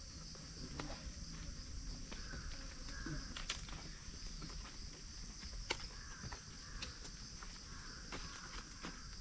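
Large fresh leaves rustling and crinkling as they are folded and pinned together with small twig slivers into a leaf plate, with a few sharp clicks, the loudest about 3.5 and 6 seconds in. A steady high insect hiss runs underneath.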